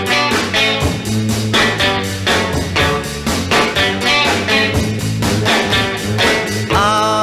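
Background rock music: guitar over a steady drum beat, giving way near the end to a long held chord.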